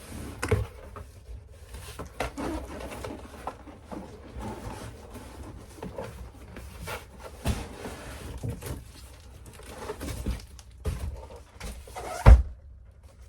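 Cardboard boxes and packaging being handled and pulled apart: scattered rustling, scraping and knocks, with one loud thump near the end.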